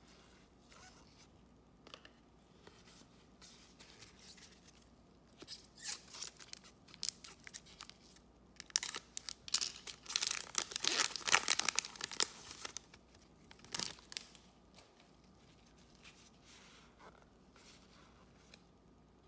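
A trading-card pack wrapper being torn open and crinkled by hand, in a run of crackling rips that is loudest a little past halfway, with softer rustling of cards being handled before and after.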